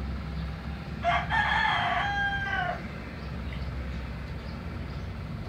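A rooster crowing once: a single call of nearly two seconds that ends on a slightly falling note, over a steady low background rumble.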